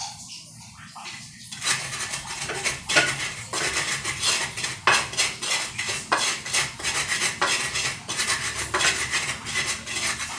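Kitchen utensils knocking and clattering on the counter as food is prepared by hand: a run of irregular sharp knocks, about two or three a second, starting about one and a half seconds in.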